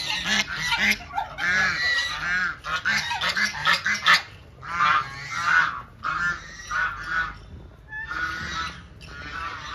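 Domestic geese honking, a rapid run of loud, harsh calls that comes in clusters and thins out over the second half.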